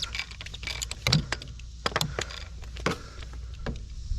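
Scattered clicks and knocks of tools and parts being handled while the cap is taken off the 6.0 PowerStroke's fuel filter bowl, over a low steady hum.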